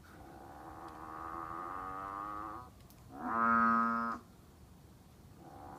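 Strange droning call from an unseen animal, repeating in a breathing-like cycle: a long, quieter call of about two and a half seconds that sinks in pitch at its end, then a shorter, louder call of about a second, then the long one again near the end. The listeners wonder whether it is snoring.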